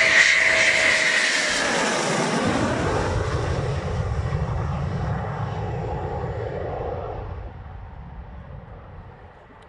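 Eurofighter Typhoon's twin EJ200 turbofan jet engines passing low overhead on approach. A loud high whine drops steeply in pitch as the jet goes by, then gives way to a low rumble that fades as the jet heads down the runway for a touch-and-go.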